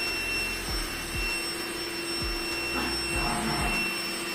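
Trifo robot vacuum running, a steady mechanical hum with constant high tones, over short low thumps about twice a second.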